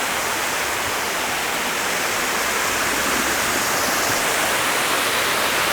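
Waterfall on a small river, with water rushing steadily.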